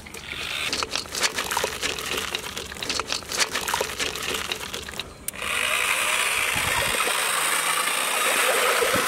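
Crushed cashew nuts sliding off a steel bowl and pattering into a large pot of milkshake, many small rattling clicks. About five seconds in it changes abruptly to a steady whir and churning as an electric drill with a paddle mixer whisks the milkshake.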